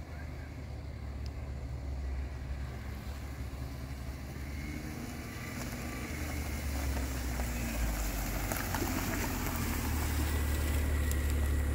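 1999 Suzuki Every Join Turbo kei van's 660 cc three-cylinder turbo engine running as the van drives across a grassy field. It is a low, steady engine note that grows gradually louder as the van comes closer.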